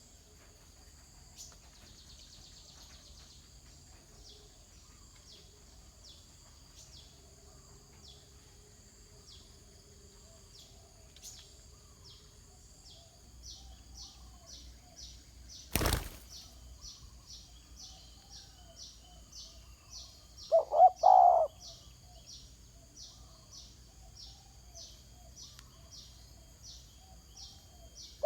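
Spotted dove giving one short cooing call of a few notes about twenty seconds in, over faint steady insect chirring with evenly spaced ticks. A single sharp click comes near the middle.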